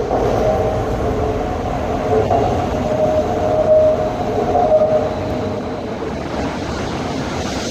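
Guangzhou Metro Line 14 train running on elevated track close by: a steady rumble with a wavering whine over it, loudest in the middle and easing slightly near the end.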